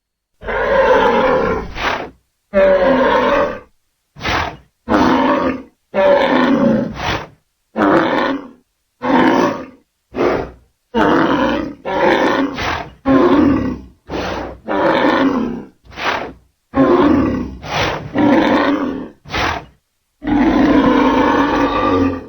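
Ngoubou creature sound effects: a string of separate roars and grunts, some short, some a second or two long. Each call cuts off abruptly into silence before the next one starts.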